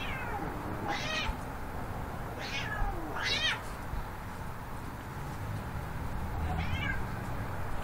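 A cat meowing in protest at a dog pestering it: four short, wavering calls in the first few seconds, a pause, then one more near the end.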